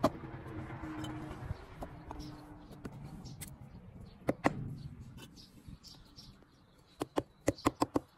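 A low rumble dies away over the first few seconds. Sharp taps come through it: two close together about four and a half seconds in, then a quick run of about six near the end.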